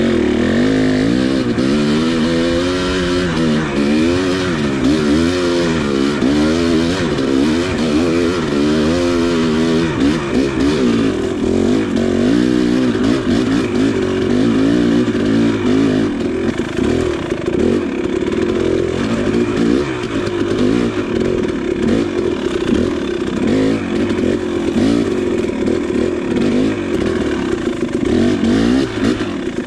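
KTM 300 two-stroke dirt bike engine revving up and down in quick repeated swells as it is ridden along a forest single track; from about ten seconds in the engine note holds steadier.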